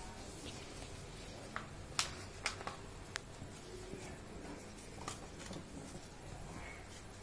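A sheet of paper handled and rolled into a cone, rustling softly, with a scattering of sharp crinkle clicks, the loudest about two seconds in.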